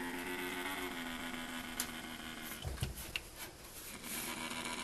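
Spotted genet growling low and steady with an object held in its mouth, with a few sharp clicks about two to three seconds in.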